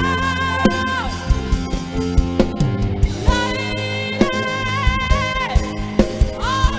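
Live rock band playing a slow power ballad through a large PA: long held high melody notes with vibrato and bends over bass, sustained chords and steady drum hits.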